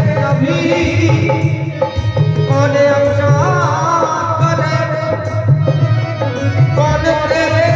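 Hindu devotional bhajan performed live: a man singing into a microphone over a steady drum rhythm and melodic accompaniment.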